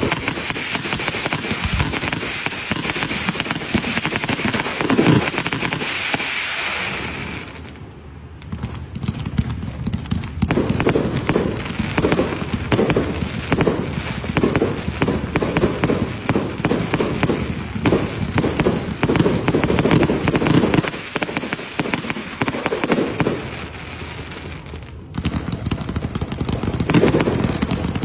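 Fireworks shot up from the ground in rapid volleys, a dense run of launch thumps, pops and crackling bursts. It drops off briefly about eight seconds in, and goes quieter for a few seconds near the end before picking up again.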